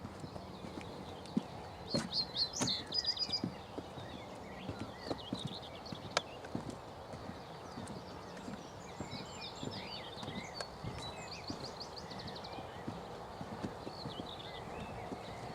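Steady footsteps walking along a path, with small birds singing short high trills a couple of times over them.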